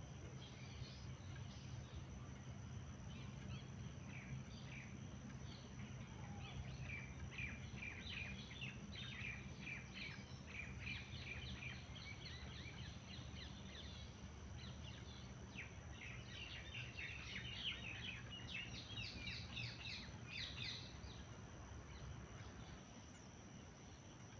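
Small birds chirping in quick, short notes, busiest in two spells and dying away near the end, over a steady low hum.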